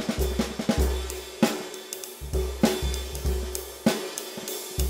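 Vintage Gretsch drum kit played in a steady groove: bass drum, snare and toms under a continuous wash of Paiste cymbals, among them the Formula 602 Classic Sounds 20-inch thin flat ride. Sharp strokes land about one and a half and two and a half seconds in.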